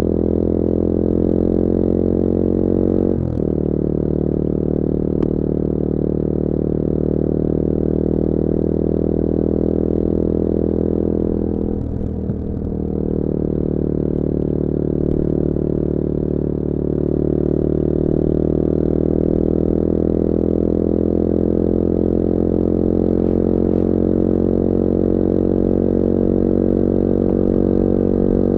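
Bullit Hero 250's CF Moto 250cc four-stroke engine running under way. The revs dip briefly about three seconds in and again around twelve seconds, as with gear changes, then slowly climb.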